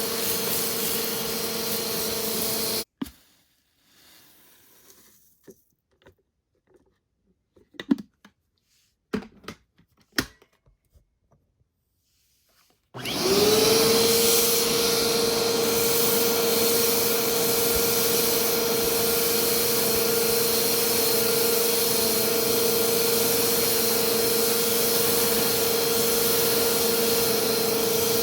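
Vacuum cleaner running with a steady whine, which cuts off suddenly about three seconds in. About ten seconds of quiet follow, broken by scattered clicks and knocks from handling. Then a vacuum motor switches on, its whine rising quickly to a steady pitch, and runs on.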